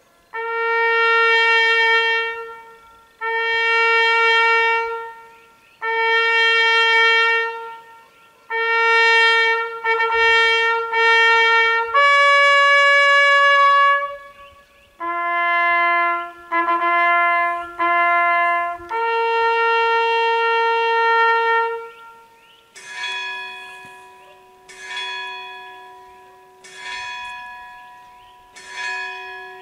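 Solo trumpet playing a slow commemorative call: long held notes with short breaths between, a quicker run of repeated notes near the middle. About 23 s in the trumpet stops and a church bell starts tolling slowly, one ringing stroke about every two seconds.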